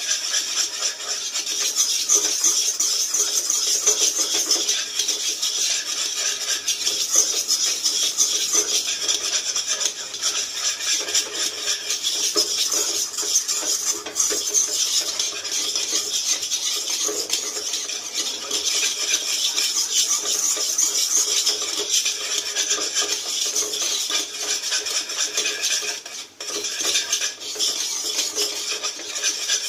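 Spatula scraping and stirring thick, reduced milk around a dark non-stick pan: a continuous rasping scrape with a brief pause near the end. The milk is being cooked down to a dry mass that is beginning to turn golden.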